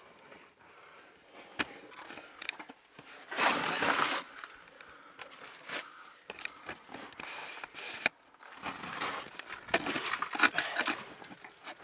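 Shoes and hands scuffing and scraping on rock as people scramble over boulders, with clothing and gear rustling; the scraping comes in louder stretches about three and a half seconds in and again near the end.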